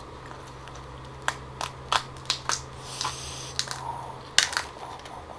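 Cooked lobster shell cracking and snapping as it is pulled apart by hand, a series of sharp clicks with a short scraping noise about three seconds in.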